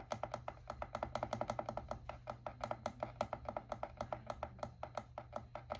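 Alarm clock's button clicking rapidly and evenly, about seven clicks a second, as the alarm time is stepped forward to 6:30; the clicking stops at the very end.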